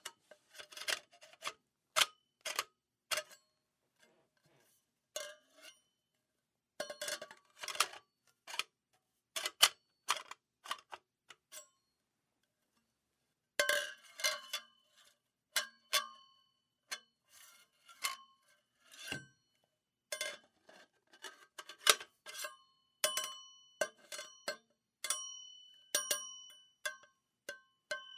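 Metal poles and pipes being fitted together and pulled apart, giving a run of sharp metallic clanks and knocks with short pauses. In the later part many hits ring on with a clear, held metallic tone.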